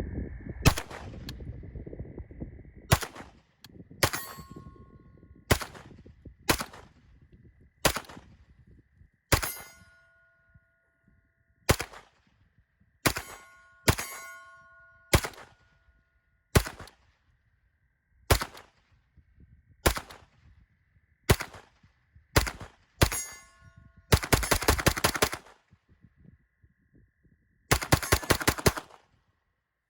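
Sig Sauer MPX Gen 2 9mm with an 8-inch barrel firing. Single shots come about a second or two apart, some followed by a short metallic ring. Near the end come two quick strings of rapid fire. The gun cycles every round with no malfunction.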